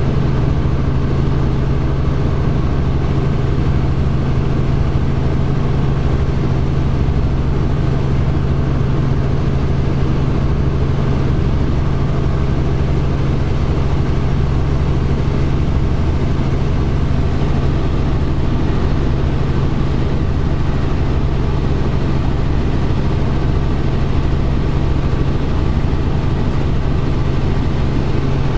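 Robinson R44 helicopter in cruise flight heard from inside the cockpit: the loud, steady drone of its rotors and six-cylinder Lycoming piston engine, with a strong low hum that does not change.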